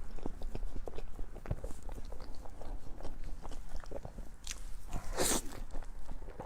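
Close-miked eating: a person biting and chewing food, many small wet clicks and crunches of the mouth, with a short hissy rush about five seconds in.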